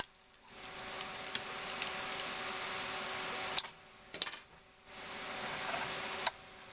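Steady hum of a 3D printer's extra circuit-board cooling fan, which cuts out briefly twice, with small sharp clicks and taps as a hand tool works at the print on the printer bed.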